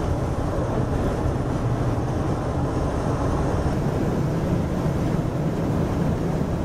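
Steady road and wind noise of a Chevy high-top van driving at highway speed, heard from inside the cabin.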